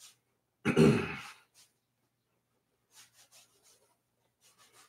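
A man makes one short wordless throat sound about a second in, followed by a few faint soft taps and rubs as a leather belt strap is handled.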